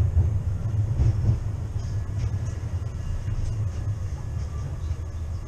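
Tram running, heard from inside the passenger car: a steady low rumble of motors and wheels on the rails, with a few faint clicks.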